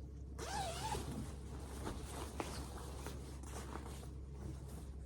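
A jacket's zip being pulled, a rasp that rises and falls in pitch about half a second in, followed by fabric rustling and a few small clicks as the jacket is handled and put on.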